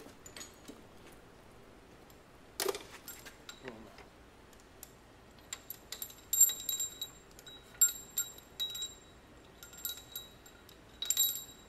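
Steel pushrods of a Ford 289 V8 clinking as they are pulled out of the engine by hand. A single louder clunk comes near three seconds in, then a run of light metallic taps in the second half, each leaving a brief high ring.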